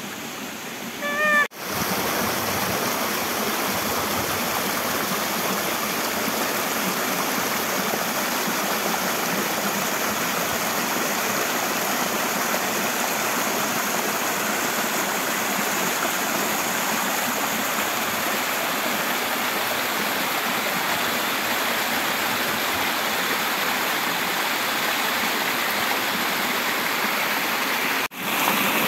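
Flowing stream water rushing steadily. It starts abruptly about a second and a half in and cuts off shortly before the end. Just before the water begins there is a short high call.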